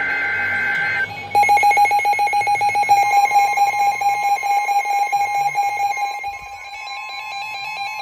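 Several weather alert radios sounding their alarms together for a special marine warning. Two steady high beeps come first. About a second in, a fast-pulsing alarm tone starts with warbling high beeps layered over it, and from about three seconds in a steady single tone joins. The mix drops somewhat in loudness after about six seconds.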